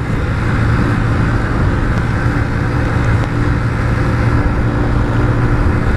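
Motorcycle engine running at a steady pitch while riding, with a continuous rush of road noise.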